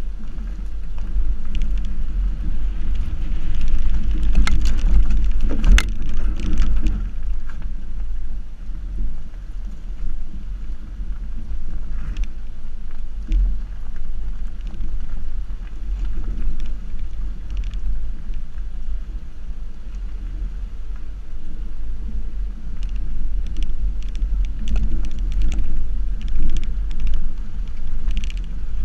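Subaru XV's front tyre rolling over a dirt and gravel track, picked up close to the wheel: a steady low rumble with scattered ticks and crunches of stones under the tyre, busiest a few seconds in and again near the end.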